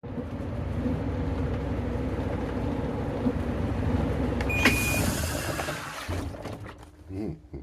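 Panasonic NA-F7PB3 vertical washing machine running with a steady hum and whir, as in its spin cycle. About halfway through there is a click and a short beep, after which the running sound winds down and fades away.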